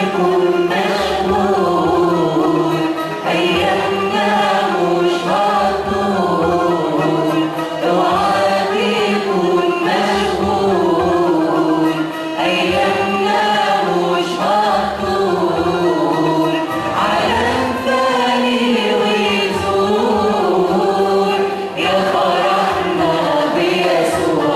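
A church choir singing a Christian hymn, many voices together carrying a flowing melody without a break.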